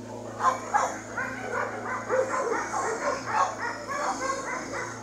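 Dog yipping and whining in a rapid string of short, high calls, several a second.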